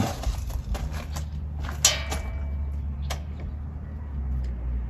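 Plastic clamp-on current sensors being clipped around the main feed wires in a breaker panel: a handful of sharp clicks and snaps, the loudest about two seconds in. A steady low rumble runs underneath.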